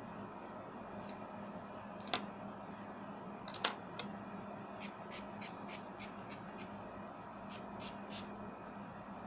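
Quiet room tone with a steady low hum, broken by scattered light clicks and taps. The sharpest click comes a little over three and a half seconds in, and a run of fainter ticks follows through the second half.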